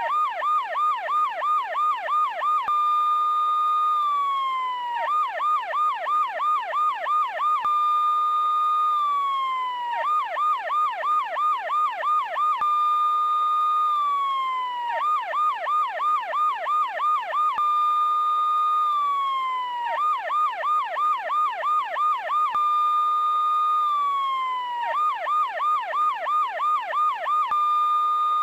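Electronic police car siren cycling through its pattern: a fast yelping warble of about three sweeps a second for nearly three seconds, then a held high tone that slides down, repeating about every five seconds.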